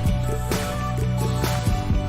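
Background music with a steady beat and a plucked guitar line.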